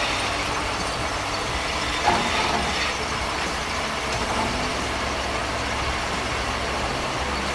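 Truck running with a steady engine and road noise, a brief louder sound about two seconds in.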